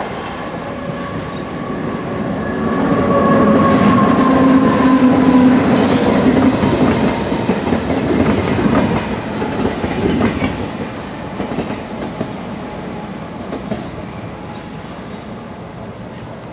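A train passing by, its wheels clattering on the rails, with a whine that drops slightly in pitch as it goes by. It swells to its loudest about four to seven seconds in, then fades away.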